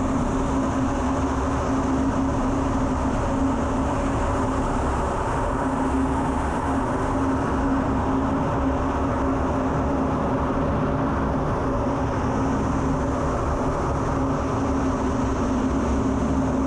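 Steady drone of an F-16 in flight, heard from inside the cockpit, with a low, even hum running under it.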